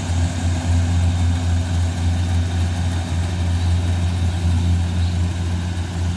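Rice harvester engine running steadily, a loud even low hum over a broad mechanical noise.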